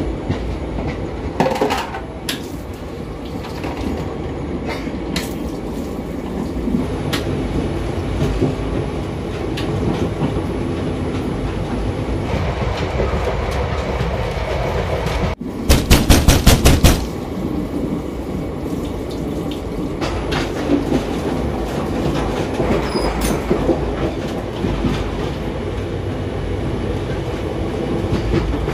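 Moving Indian Railways passenger coach heard from inside: a steady rumble of wheels on track with scattered clicks and rattles. About halfway through comes a rapid run of loud clacks lasting just over a second, the wheels hammering over rail joints.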